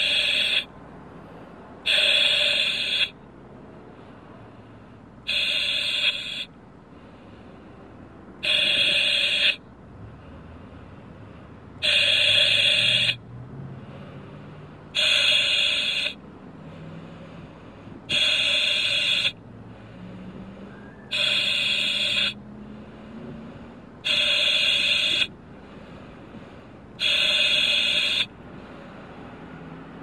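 Breathing through an oxygen mask at a constant rate: a hissing breath about every three seconds, each lasting about a second and starting and stopping abruptly.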